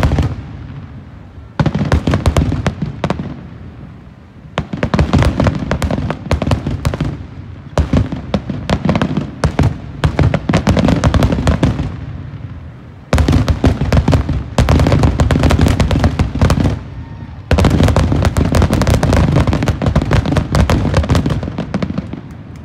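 Aerial fireworks going off in rapid volleys of bangs and crackles, about five dense bursts separated by brief lulls, dying away near the end.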